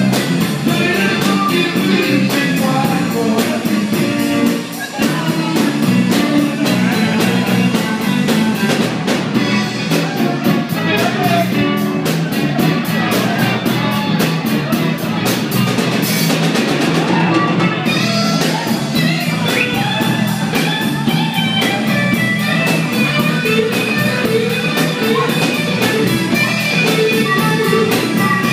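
Live rock music from an electric guitar and a drum kit, played with a steady beat, with a brief break about five seconds in.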